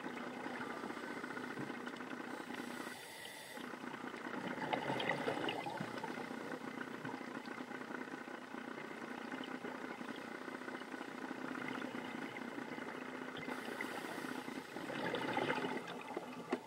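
Underwater sound: a steady engine hum, as from a boat's motor carried through the water, with a scuba diver's regulator breathing twice, each a hiss of inhalation followed by a rush of exhaled bubbles.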